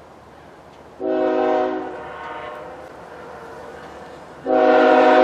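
Chime horn of an approaching CP ES44AC locomotive: a short blast about a second in, then a longer, louder blast near the end that is still sounding at the close. Each blast sounds several notes together as a chord.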